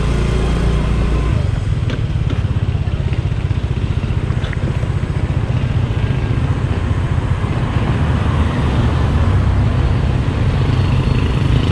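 Small automatic scooter's engine running steadily as it rides along a road, with a constant low rumble of engine and road noise.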